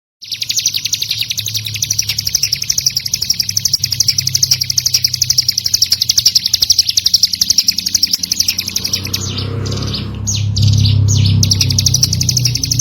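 Ciblek gunung, a mountain prinia, singing a fast, unbroken trill of high chirps that breaks into a few separate notes about nine seconds in. A low hum underneath grows louder near the end.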